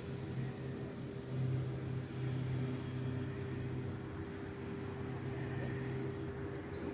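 High-velocity dog jet dryer running steadily, its motor giving a constant hum under a rush of blown air, with the low hum swelling a little about a second and a half in.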